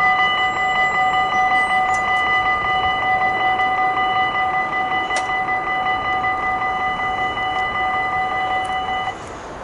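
Railway level-crossing warning bell ringing steadily for an approaching train, then cutting off suddenly near the end.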